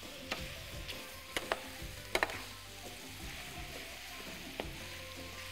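Shrimp sizzling in hot oil in an open metal pan as they fry until they change colour. The shrimp are stirred with metal utensils that clink against the pan a few times.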